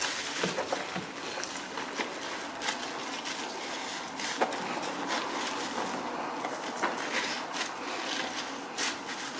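A wet microfiber cloth squeezed and kneaded by gloved hands in a bowl of soapy water: squelching and sloshing, with many short splashes and drips throughout.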